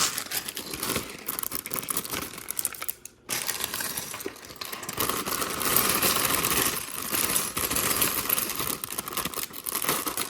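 Plastic LEGO parts bags crinkling as they are handled and torn open, with a brief pause about three seconds in.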